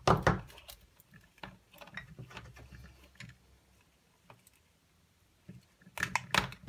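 Scattered clicks and taps of hand-tool work on small plastic and metal parts: end-cutter pliers gripping and working at a plastic lamp disc. A loud knock at the start, light ticks after it, and a quick run of sharp clicks near the end.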